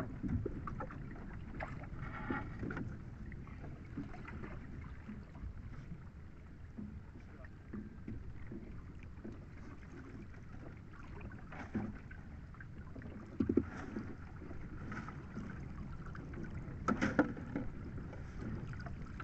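Steady wind and water noise as a rope of cottonii seaweed is hauled dripping out of the sea over the side of a small boat, with a few short knocks scattered through.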